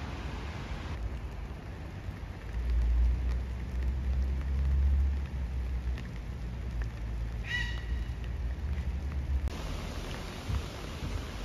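Rain hissing steadily; the hiss drops about a second in and comes back strong near the end. Through the middle there is a low rumble, and about two-thirds of the way through comes one short high chirp.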